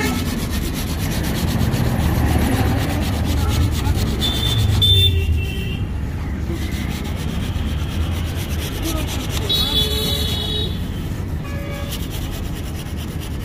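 Steady rubbing on a surface over a low rumble of street traffic, with short high tones about five and ten seconds in.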